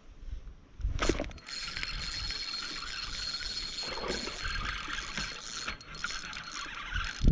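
Spinning fishing reel being cranked, its gears whirring steadily as line is retrieved. It starts with a knock about a second in.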